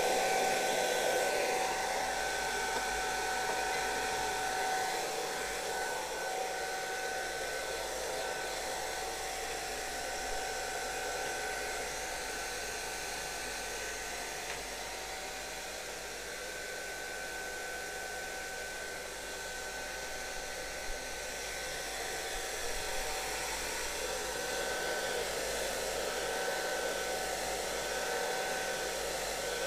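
Handheld hair dryer running steadily, blowing over a freshly printed sheet of tracing paper: a continuous rush of air with a constant motor whine, a little quieter through the middle and louder again toward the end.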